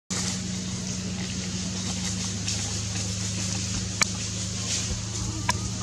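A steady low engine hum under a light hiss, with a sharp click about four seconds in and another near the end.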